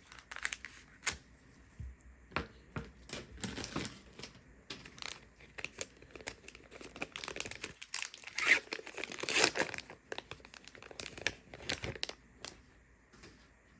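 Plastic trading card pack wrapper being torn open and crinkled in the hands, in irregular bursts of crackling, loudest about two thirds of the way in.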